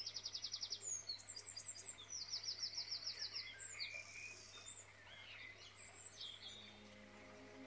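Faint songbird chorus: rapid trills and short whistled phrases from several birds. Soft music fades in near the end.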